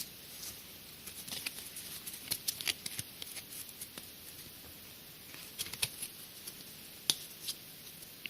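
Pokémon trading cards being handled: light, irregular clicks and rustles as the cards are shuffled and set down.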